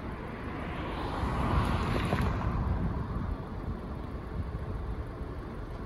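Wind rumbling on the microphone, with a passing vehicle that swells to a peak about two seconds in and then fades away.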